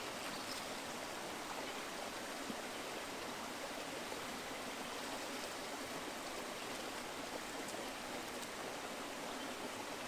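Steady rush of a creek's running water, even and unbroken.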